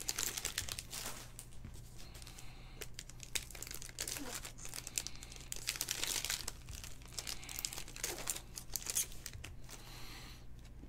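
Foil trading-card pack wrappers crinkling and rustling as torn-open packs and their cards are handled, in a run of irregular crackles.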